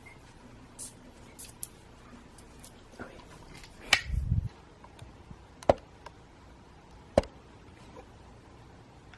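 A few scattered sharp clicks and knocks in a small room, with a dull thump about four seconds in and two sharper knocks a second and a half apart near the end.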